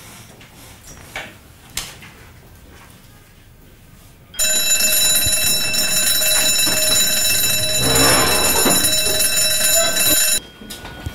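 School bell ringing loudly for about six seconds, starting suddenly a few seconds in and cutting off abruptly near the end, signalling the end of the lesson. Before it, a quiet classroom with a few small knocks.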